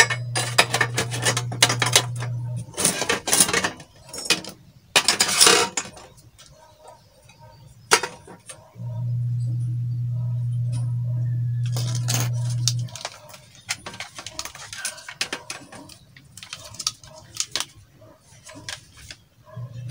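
Short steel pipe pieces and fittings clinking and knocking against each other and the metal stove body as they are handled and fitted in, with the loudest clanks about three and five seconds in. A steady low hum stops about three seconds in, returns for about four seconds in the middle, and comes back at the end.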